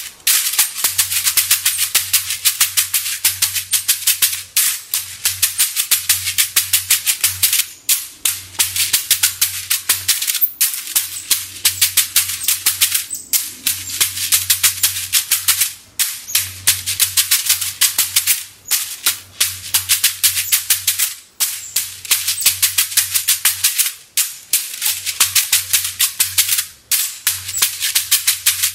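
Shekere, a gourd covered with a net of beads, shaken and swung in a fast, dense rattling rhythm. It plays in phrases of about two to three seconds, each ended by a brief break.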